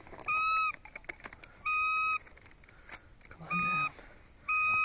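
Four short honk-like waterfowl calls, each about half a second long and held at one steady pitch, spaced roughly a second apart.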